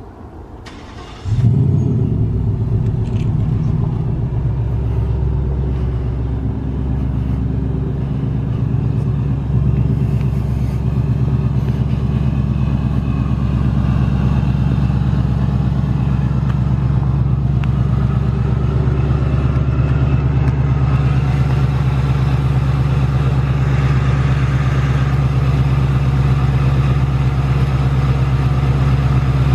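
Ford Mustang GT's 5.0 L Coyote V8 starting about a second in with a brief flare of revs, then idling steadily.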